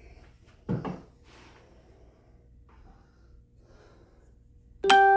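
A short thump about a second in. Near the end a single plucked guitar note rings out and slowly fades as background music starts.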